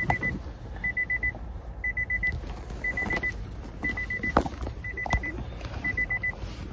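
Car warning chime beeping in quick groups of four high beeps, about one group a second, inside the car cabin, with a few sharp knocks and rustles of movement, the loudest about four and a half and five seconds in.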